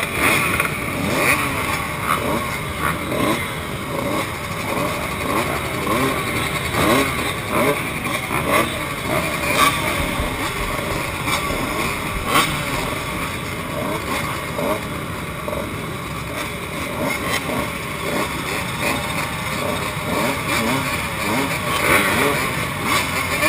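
A pack of motocross bikes idling and revving together, many short throttle blips rising and falling over one another, with a Kawasaki KX125 125cc two-stroke single close by.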